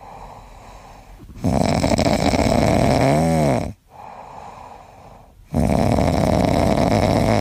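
A sleeping pet snoring: two long snores of about two seconds each, separated by quieter breaths, the first ending in a short squeak that rises and falls in pitch.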